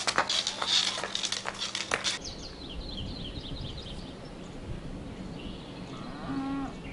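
Footsteps and clatter on stone paving for about two seconds, then the open-hillside sound of a grazing herd: small birds chirping, and one short bleat from a sheep or goat near the end.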